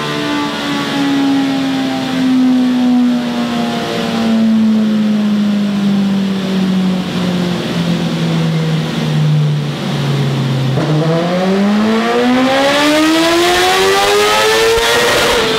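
BMW S1000RR inline-four engine running through a Scorpion aftermarket exhaust, with the bike in gear on a rolling-road dyno. The engine speed falls slowly for about ten seconds, then climbs steadily for about four seconds, and the throttle is shut just before the end.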